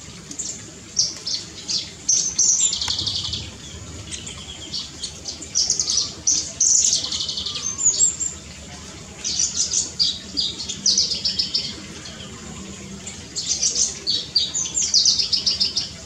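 Birds chirping: rapid high-pitched trills and chatters in repeated bursts with short pauses between them.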